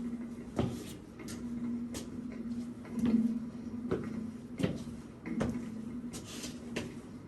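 A steady low tone resonating in a room, with irregular sharp clicks and knocks about once a second over it.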